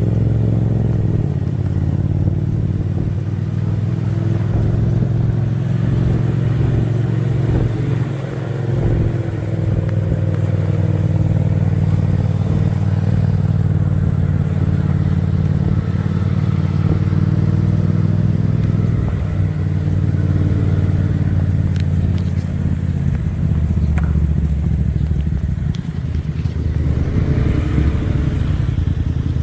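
Motorcycle engine running on the move, its pitch drifting up and down with speed, with a few faint clicks.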